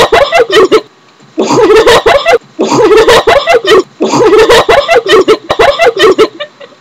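Hard laughter in four loud bursts with short gaps between them, the last trailing off near the end.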